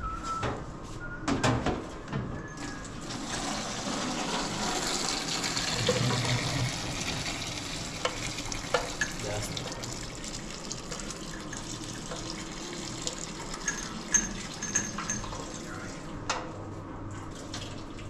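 Kitchen tap running into a steel sink and metal pot, the water starting a few seconds in and tapering off after several seconds. Scattered clinks and knocks of the metal pot and dishes against the steel counter.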